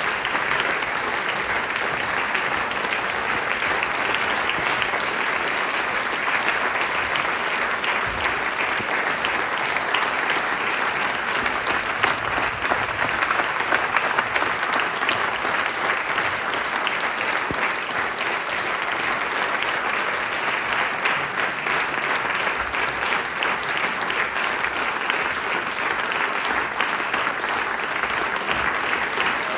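Large theatre audience applauding at the closing curtain call: dense, steady clapping that swells slightly about halfway through.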